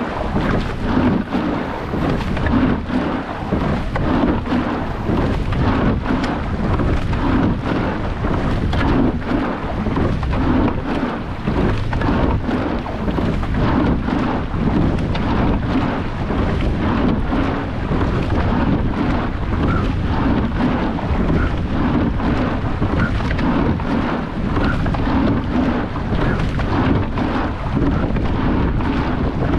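Wind buffeting the microphone of a camera mounted low on a moving rowing boat, over water rushing along the hull, with frequent short knocks.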